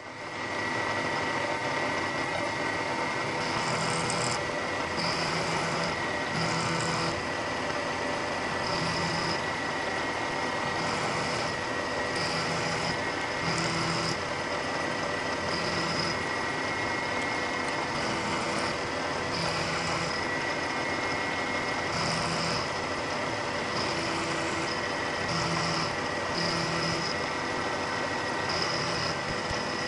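Milling machine running with a 4-flute end mill roughing aluminium, a steady machine hum with a second sound that comes and goes every second or two as the cut goes on.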